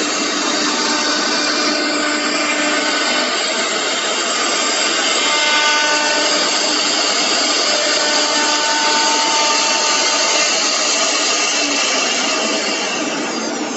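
Three-head CNC router's spindle running with its bit routing a groove in an MDF panel: a steady, loud whir and cutting hiss with faint whining tones, easing off slightly near the end.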